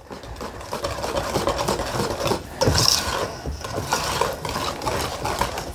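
Wire whisk beating runny cake batter in a metal mixing bowl, a continuous quick scraping and clicking of the wires against the bowl as melted butter is whisked in.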